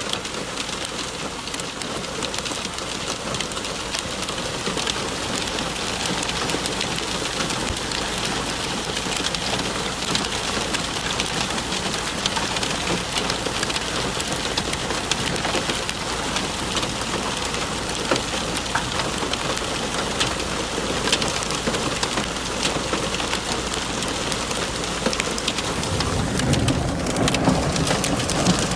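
Heavy rain mixed with large hailstones pelting down, a dense, steady patter of countless small impacts. A deeper rumble comes in near the end.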